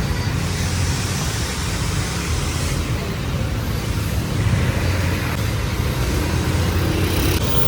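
Steady road traffic: a constant low rumble of vehicle engines under an even hiss.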